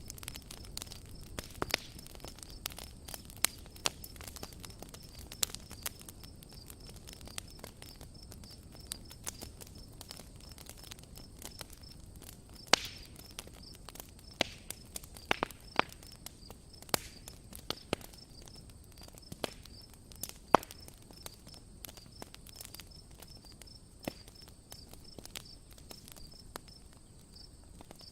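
Campfire crackling, with irregular sharp pops of burning wood over a soft low rustle of flames. Insects chirp steadily and high in the background.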